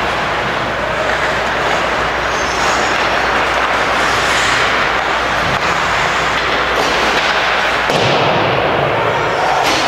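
Ice rink ambience during a hockey game: a steady rushing noise with a constant low hum underneath.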